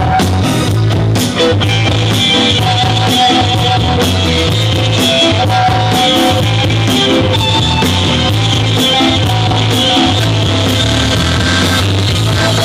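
Live band playing: electric guitar over a steady pulsing electric bass line, with accordion and drums.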